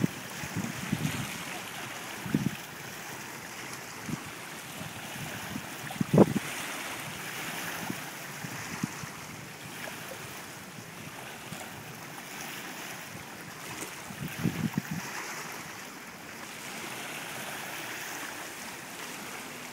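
Small waves lapping and washing over a stony shoreline, a steady splashing hiss. Gusts of wind buffet the microphone with low rumbles near the start, about six seconds in (the loudest), and again around fourteen to fifteen seconds.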